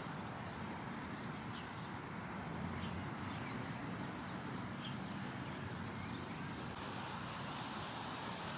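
Steady hum of city traffic and outdoor ambience, with scattered short bird chirps.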